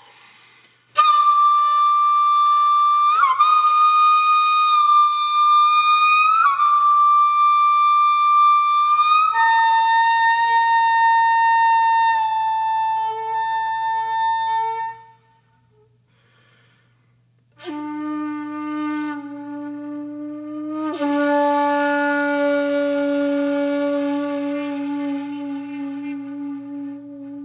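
Background music: a solo flute playing long held notes, several of them sliding up into pitch as they begin. After about fifteen seconds it stops for a couple of seconds, then comes back on a lower, sustained note.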